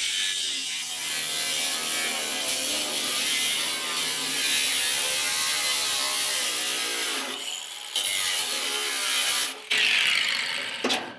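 Power tool cutting along the edge of a sheet-metal hood panel, a rattling mechanical sound. It runs in one long stretch, stops briefly about seven seconds in, then makes two shorter passes.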